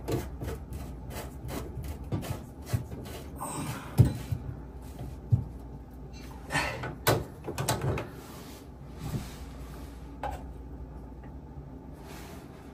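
Plastic sink drain parts being handled and pushed together: scattered clicks and knocks with rubbing scrapes, the sharpest knock about four seconds in.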